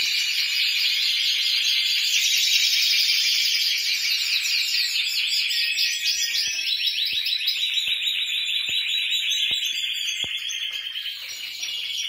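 Many Timbrado Español canaries singing at once: a dense chorus of fast, overlapping trills that thins a little near the end.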